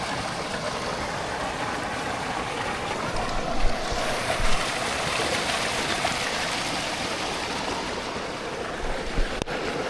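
A small waterfall and stream running, a steady rush of water, with a few brief bumps about three and a half, four and a half and nine seconds in.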